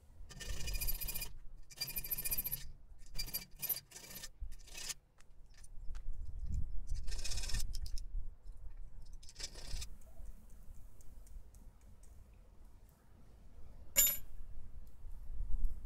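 Small metal parts being worked by hand: two short scraping strokes, then a run of light clicks and clinks, more scraping about halfway, and one sharp metallic click near the end.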